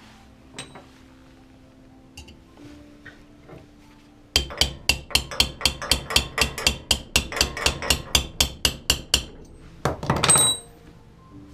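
A run of about twenty quick hammer blows, roughly four a second for about five seconds, followed by a short rattling burst that rings. Faint background music underneath.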